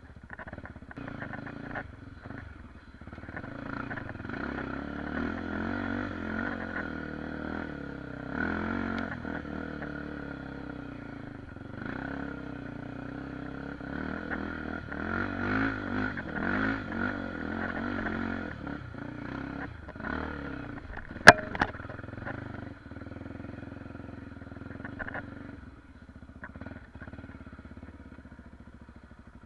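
Trail motorcycle engine riding over rough ground, its revs repeatedly rising and falling with the throttle. A single sharp knock about two-thirds of the way through is the loudest sound.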